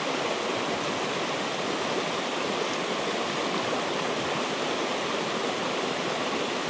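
Fast mountain stream rushing over rocks and through shallow rapids: a steady, even rush of water.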